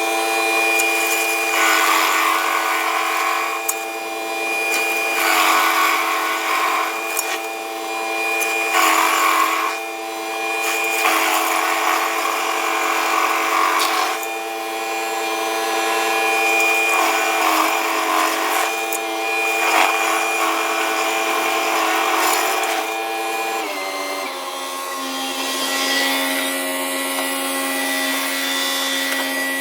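A Woodland Mills WG24 stump grinder, driven off a John Deere 3039R tractor's diesel engine, chews into a stump. Over the engine's steady hum, the cutter wheel's grinding comes in repeated bursts every couple of seconds. Near the end the grinding bursts stop and the engine tone drops slightly.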